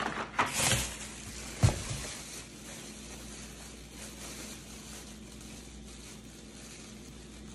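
Thin plastic shopping bag crinkling and rustling as fingers work at a tight knot in its handles. A dull thump about one and a half seconds in.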